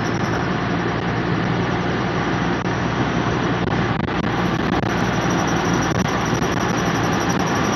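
Audi A4 B7 rolling with steady road and running noise and a thin, high, steady whine that becomes continuous about halfway through: the brake noise being recorded.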